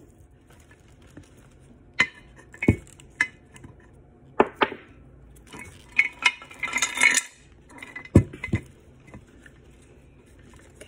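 A clear glass jar knocked and clinked about ten times as rooted plant cuttings are pushed down into it and it is handled, with a short scraping, rustling stretch about seven seconds in.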